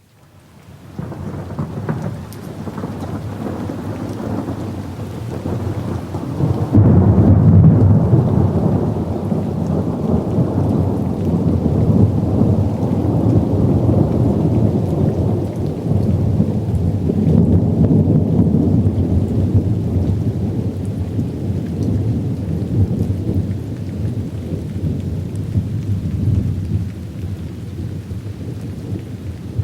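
Rolling thunder over steady rain. The rumble builds in the first second, is loudest about seven seconds in, swells again just after halfway, then slowly dies down.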